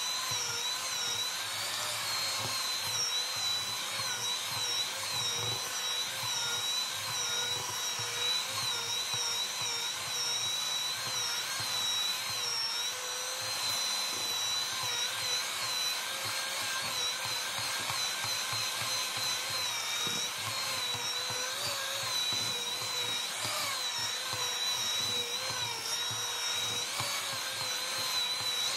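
Electric hand mixer with dough hooks running steadily while kneading bread dough in a bowl: a high motor whine that wavers slightly in pitch.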